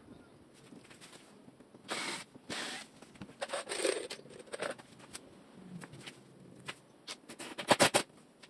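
Tools and a plastic jar of screws being handled and set down on a plywood cabinet panel: short rustles and scraping through the middle, then a quick run of sharp clicks and rattles near the end, the loudest part.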